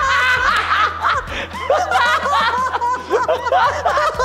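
A man and a woman laughing heartily together in repeated bursts, over light background music.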